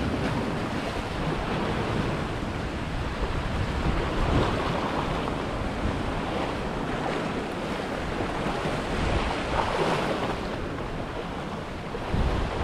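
Sea swell surging and breaking white over rocks, the wash rising and falling in surges, with wind buffeting the microphone.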